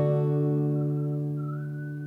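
Background music: a sustained guitar chord ringing out and slowly fading.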